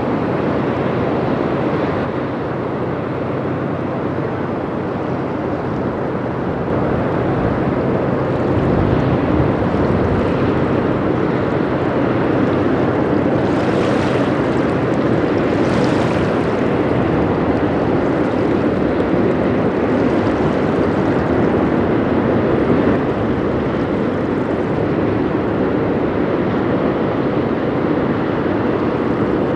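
Push boat's diesel engines running steadily as the push convoy passes, mixed with the wash of river water; the sound grows slightly louder partway through, with two short hissy swells about halfway.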